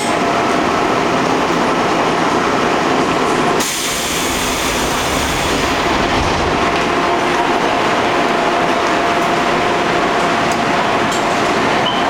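Seoul subway Line 2 train running, heard from inside the car: a steady rush and rumble with a faint steady whine. The noise shifts briefly, with a higher hiss, about four seconds in.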